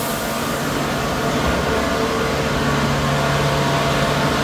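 Kubota DC70 Plus combine harvester's diesel engine running steadily, growing slightly louder.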